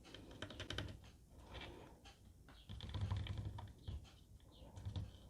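Faint, irregular light clicks and soft knocks from handling the small plastic parts of a car side-mirror folding-gear housing while grease is squeezed into it, with a quick run of clicks about half a second in.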